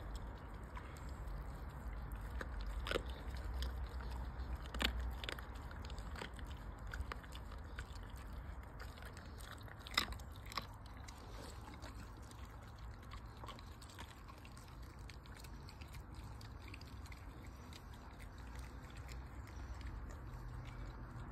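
German shepherd chewing and crunching raw chicken, with a series of sharp cracks, the loudest about five and ten seconds in. The crunching thins out in the second half.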